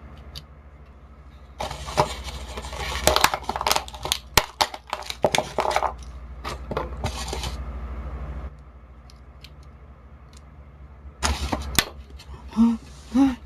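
Small hard plastic and metal parts clicking, tapping and rattling as they are handled, the sound of a small flashlight being fitted and loaded. It comes in a long run of clicks and scrapes, then a shorter clatter later on.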